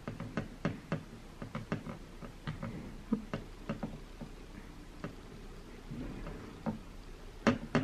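Alcohol prep pad rubbed back and forth over an iPhone 11 Pro Max's glass screen, giving a run of light taps and clicks of fingers and nails on the glass. The clicks come about three a second at first, then more sparsely, with two sharper clicks near the end.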